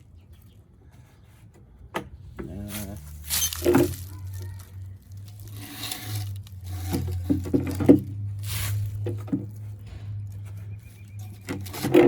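Plastic air box being handled and worked on: irregular knocks, clicks and scraping rustles over a low steady hum.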